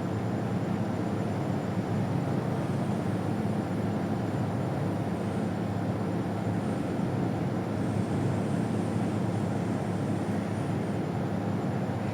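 A steady low rumbling noise at an even level, with no distinct events.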